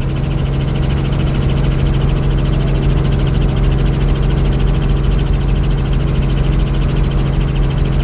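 Tour helicopter in flight, its rotor and engine running steadily: a deep steady hum with a fast, even chopping pulse over it.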